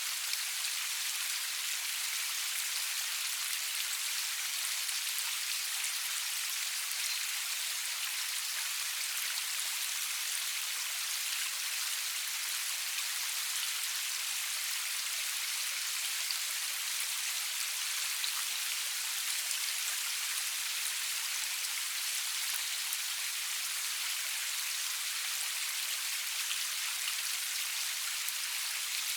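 Steady rain falling, an even high-pitched hiss sprinkled with the fine patter of individual drops.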